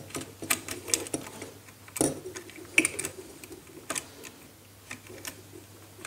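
Irregular small clicks and taps from a plastic bulb holder and its wire being handled while the wire end is fitted to the holder's brass terminal, with the sharpest clicks about two seconds and three seconds in.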